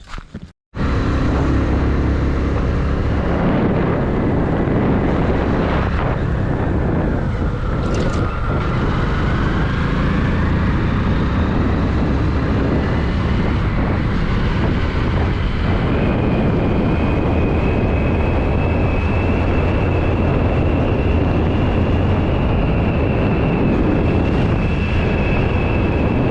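Loud, steady rumble of a vehicle in motion with wind noise on the microphone, starting abruptly under a second in, with a faint high whine above it.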